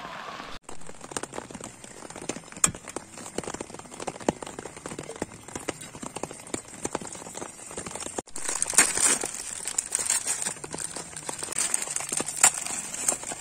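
Scattered light taps and ticks, then from about eight seconds in louder crinkling and rustling of a plastic instant-noodle packet being handled and opened.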